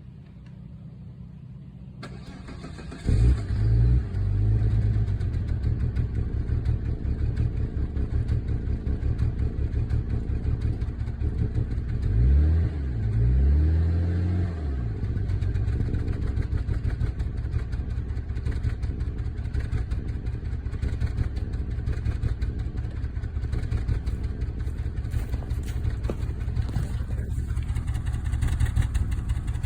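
Volvo S80 T6's turbocharged inline-six started about three seconds in, then idling with an uneven pulse, with two quick revs around the middle. The engine has a misfire and runs rough.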